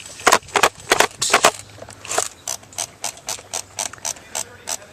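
JG M4 airsoft electric gun (AEG) firing repeated semi-automatic shots, its gearbox cycling with each sharp crack: a few uneven shots, then a steady run of about four a second.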